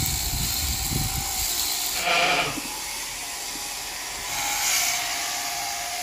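Electric sheep shears buzzing steadily while a Valais Blacknose sheep is shorn. About two seconds in, a sheep gives one short bleat.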